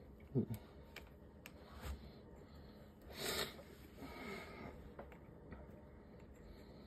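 Faint small clicks and scrapes of a metal gasket removal pick working inside a brass refrigerant hose adapter to pry out its gasket. A short low grunt about half a second in, and a breathy hiss about three seconds in.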